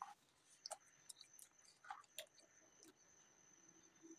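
Faint wet chewing and mouth clicks of someone eating soft pav bread dipped in bhaji curry, with a few scattered sticky clicks.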